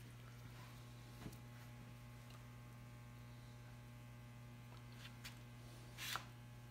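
Steady electrical hum with a few faint light taps. About six seconds in comes a short soft scrape as a varnish brush is worked in a paper cup.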